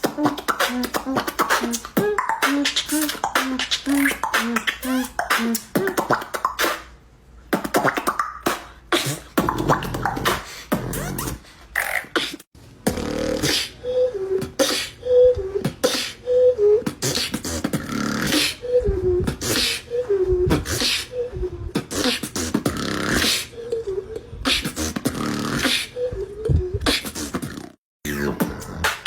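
Beatboxing: fast mouth-made drum sounds, clicks and strikes, with a hummed melody of short stepping notes carried over the beat at the same time.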